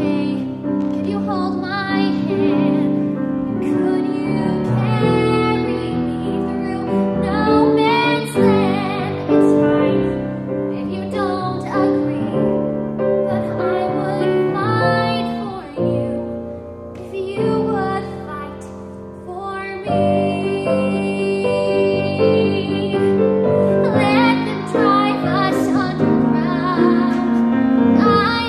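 A woman singing a musical-theatre ballad with grand piano accompaniment, growing quieter for a few seconds past the middle before swelling again.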